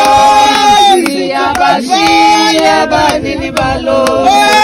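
Group singing: a woman's voice with other voices joining in, holding long notes.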